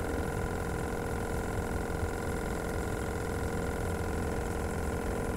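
Steady motor drone: an even hum holding the same pitch throughout, with a low rumble underneath.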